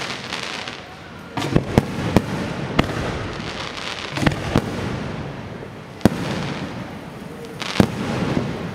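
Aerial fireworks shells launched and bursting overhead: a string of sharp bangs, several in quick succession about two seconds in, with a crackling hiss between them.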